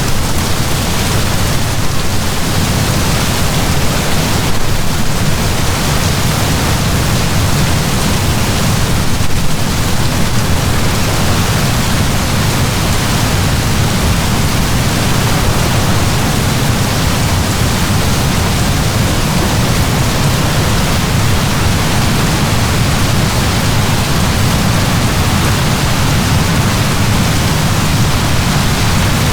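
Heavy downpour of rain falling steadily, an even hiss with a deep rumble underneath.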